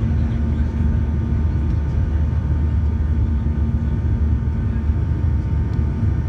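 Boeing 737-800 cabin noise heard from inside the cabin: a steady, even low rumble of the CFM56 jet engines and airflow, with a constant hum running through it.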